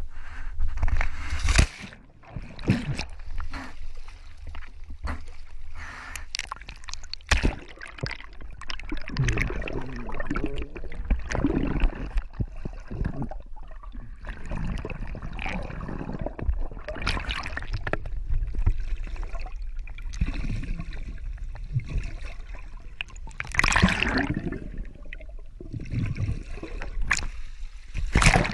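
Seawater sloshing and gurgling around a waterproof action camera as it goes in and out of the sea beside a small sailboat's hull. Loud splashes come about a second and a half in, about seven seconds in, and twice near the end.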